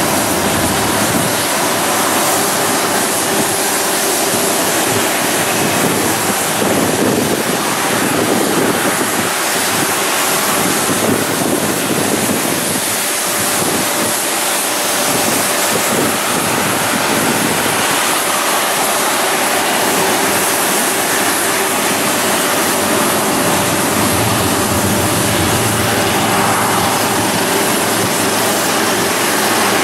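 Jet airliner engines running at taxi power: a steady, even rushing noise with a faint hum in it.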